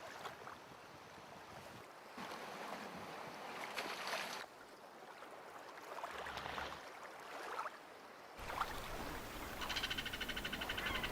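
Faint outdoor water ambience in a few cut-together stretches, with a fast, even rattle of about ten pulses a second near the end.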